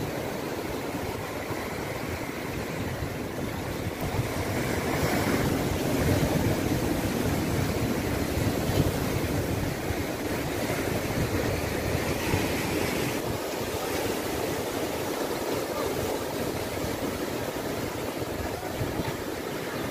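Ocean surf breaking and washing over rocks: a steady rushing noise that swells a little about five seconds in, with wind rumbling on the microphone.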